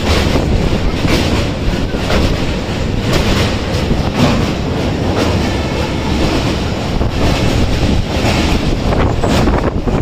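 Kanchanjunga Express passenger train running along the line, heard from aboard a general coach: a steady loud rumble of wheels on rails with rattling and clatter.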